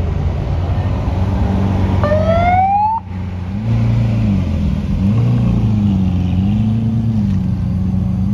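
Supercar engines driving slowly past: the Lamborghini Aventador's V12 revs with a sharply rising pitch about two seconds in and cuts off abruptly a second later. After that the McLaren 720S's twin-turbo V8 follows with a lower note that rises and falls as it creeps by.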